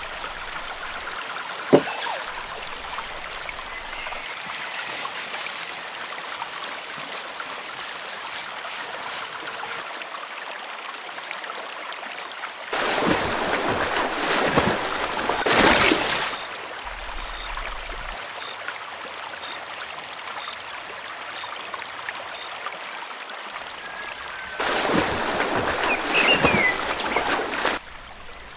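Pond water ambience: a steady trickling, stream-like flow, with a sharp knock about two seconds in. Two louder stretches of moving water, each lasting about three seconds, come mid-way and near the end.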